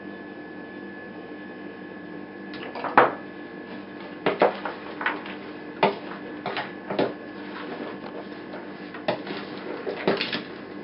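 Wooden spoon knocking and scraping against a plastic basin while stirring a chopped chicken and vegetable mixture: irregular clacks starting about two and a half seconds in, the loudest near three seconds, over a steady electrical hum.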